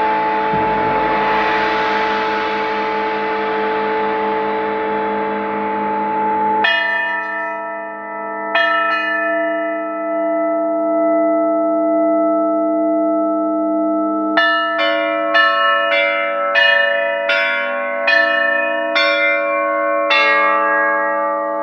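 Tuned bells ringing out a melody. First comes a dense wash of many notes sounding together. Then single struck notes ring on, followed by a quick run of about eight strikes, roughly two a second, each note sustaining after it is hit.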